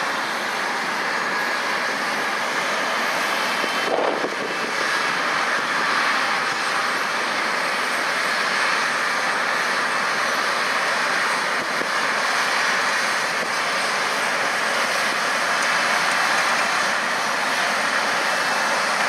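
John Deere 7760 cotton picker running as it picks cotton past the microphone: a steady, dense rushing noise from its engine and cotton-conveying fans, a little louder later on as it comes closer. There is a short thud about four seconds in.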